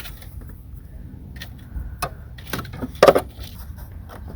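Small pry bar working a plastic battery-cover clip loose: scattered clicks and scrapes, with a louder snap about three seconds in as the clip lets go.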